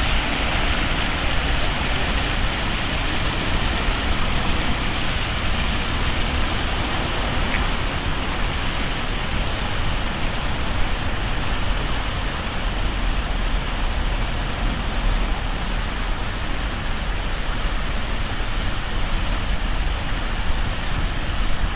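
Artificial waterfall: a steady rush of falling water.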